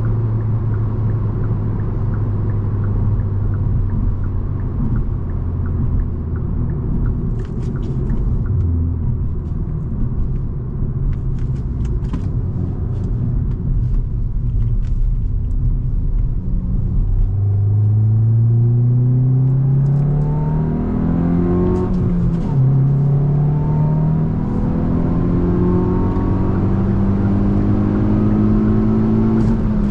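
Hyundai i20 N's 1.6-litre turbocharged four-cylinder engine cruising at a steady pitch, then accelerating from a little past halfway: the revs climb, fall back at a gear change, and climb again.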